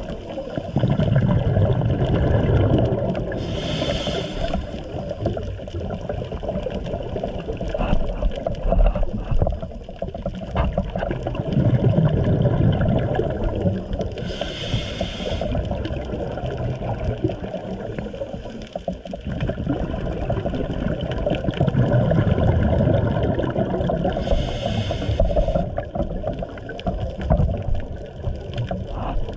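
Scuba diver breathing through a regulator underwater. Three slow breath cycles about ten seconds apart, each a bubbling rumble of exhaled air and a short hiss of the inhale through the regulator.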